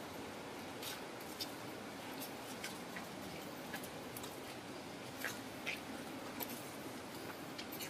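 River water rushing steadily over rapids and rocks. Scattered sharp clicks and crunches come irregularly over it.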